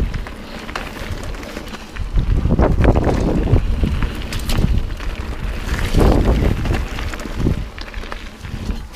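Wind buffeting the microphone while a mountain bike rolls over rough trail, with uneven gusts and scattered short knocks and rattles from the bike.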